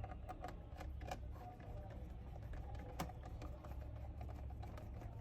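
Light, irregular clicks and taps from a screwdriver and hands working on a laptop's plastic base while its screws are tightened.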